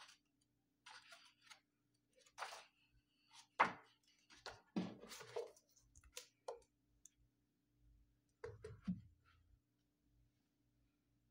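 Paper pages of a large paperback book turned and flipped by hand: short rustles and flaps of paper, with a sharper tap about three and a half seconds in and a few soft knocks of the book being handled near the end.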